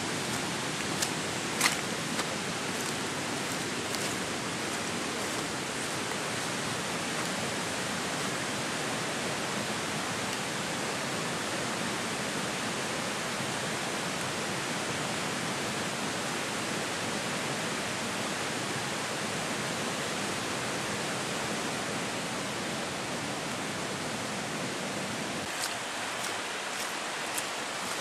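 Steady, even rushing noise, like running water. A few crisp footsteps crunch on a leaf-covered track near the start and again near the end.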